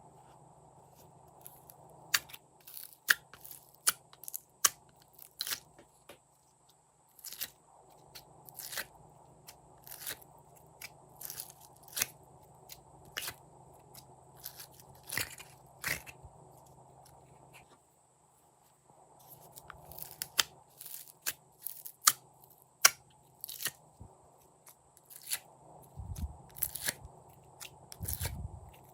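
Glossy slime being squeezed and pressed by hand, giving irregular sharp clicks and crunchy, crackling pops in clusters, with a brief lull about two-thirds of the way through.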